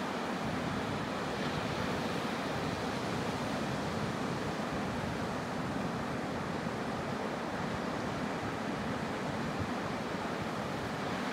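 Ocean surf breaking on a beach, a steady, even rushing.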